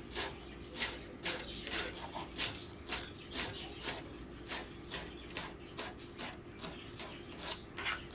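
Knife chopping green onions on a cutting board in steady, even strokes, about two a second.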